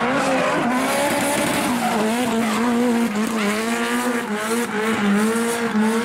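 A drift car sliding sideways through a corner: its engine held at high revs with the pitch wavering slightly as the throttle is worked, over a continuous screech of tyres sliding and smoking.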